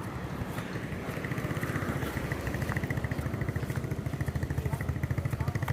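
A small motorbike engine puttering with a steady rapid beat, growing louder toward the end as it draws closer.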